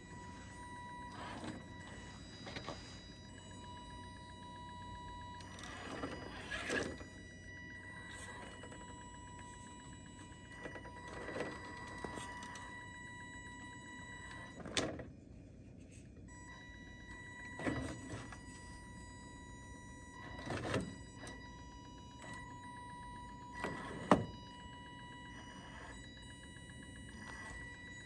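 Small electric drive motor of a Carisma SCA-1E RC rock crawler, whining steadily as it creeps over rocks, cutting out for about a second partway through. Tyres and chassis knock and scrape on the stones now and then; the sharpest knock comes near the end.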